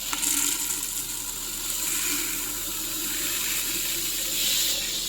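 Dry urad dal and roasted rice being poured and mixed together in a bowl, giving a steady rustling hiss that stops suddenly near the end.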